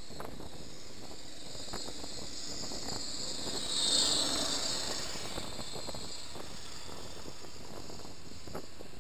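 BMW R1200RT motorcycle riding along, heard from a helmet-mounted camera: a steady rush of wind over the microphone with the engine beneath it. About four seconds in there is a brief, louder hissing swell.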